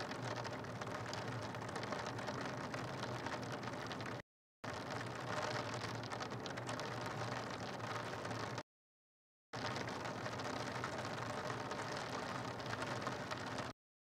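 Steady rain falling on rooftop ledges, picked up by an outdoor webcam microphone, with a low steady hum beneath. The sound cuts out abruptly to dead silence about four seconds in, again about nine seconds in, and once more near the end.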